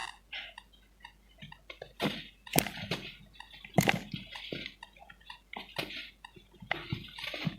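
Lumps of pure cement being crumbled, some dry and some wetted: uneven crunching and crackling with a few sharp snaps, the loudest a little after two seconds and near four seconds.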